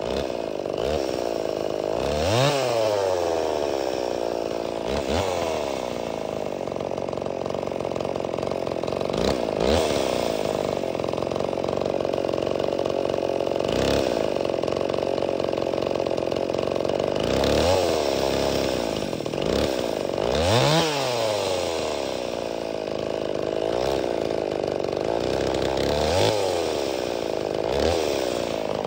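Farmertec MS361 kit-built two-stroke chainsaw running, its throttle blipped about eight times so the engine revs up and drops back each time.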